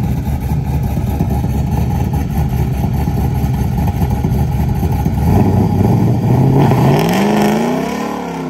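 Fourth-generation Camaro's LT1 V8 running with a steady rumble, then revving up about five seconds in, its pitch climbing and falling back near the end.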